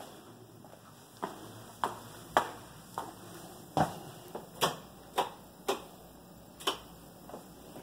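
Footsteps on hard steps and flooring: sharp clicks about two a second, a little uneven, beginning about a second in.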